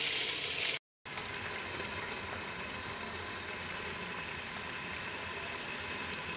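Water poured from a mug into a hot pressure cooker of frying chicken and tinda, sizzling briefly. It cuts off abruptly under a second in, and a steady, even hiss with a faint hum follows.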